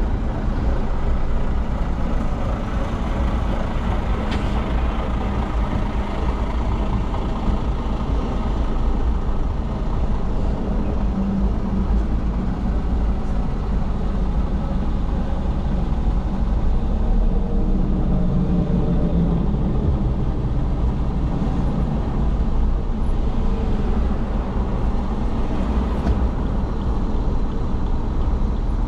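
Steady car noise: engine and road rumble with a low hum that swells slightly midway.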